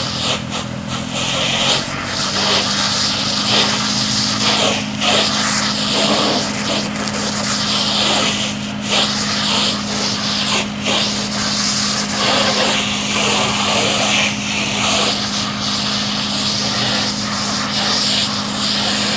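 A fire engine's pump engine runs at a steady drone, its pitch stepping up slightly about two seconds in. Over it, a hose stream on the burning car makes a loud hiss of spray and steam that rises and falls.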